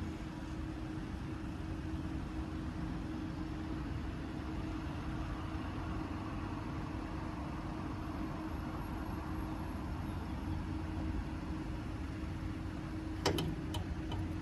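Steady low rumble of road traffic and wind, with a constant hum, and a few sharp clicks near the end.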